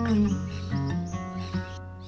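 Background music: plucked notes over a steady low bass line.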